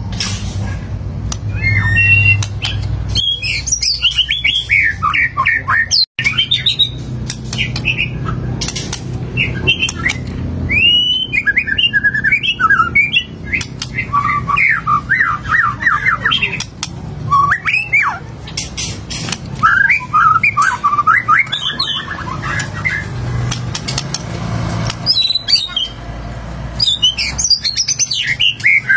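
White-rumped shama (murai batu) singing its full repertoire: fast, varied runs of whistles, chatters and harsh squawky notes, with mimicked phrases (isian) strung together, and a brief cut-out about six seconds in.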